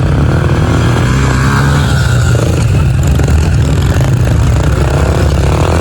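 Several pit bike engines running and revving together, their pitch rising and falling.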